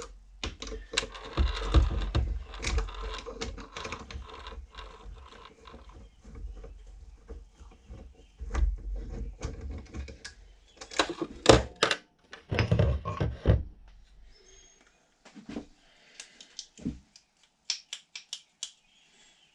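Metal transmission parts clicking and clunking as they are handled and taken apart on a workbench, with a run of louder knocks about eleven to thirteen seconds in and sparse light ticks near the end.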